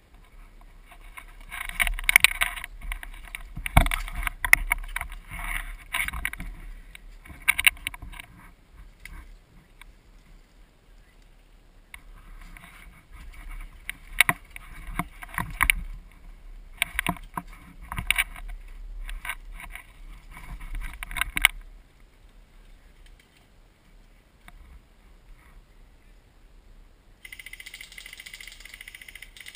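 Rustling and scraping handling noise on a gun-mounted camera, in two long stretches with scattered sharp clicks and knocks, then a steady hiss near the end.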